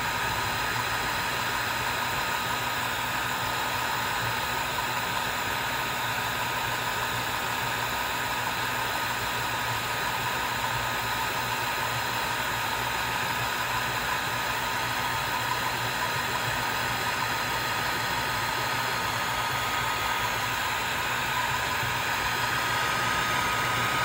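Swiitol 18-watt diode laser engraver running a job: a steady whir with a thin, steady high whine that grows a little louder near the end.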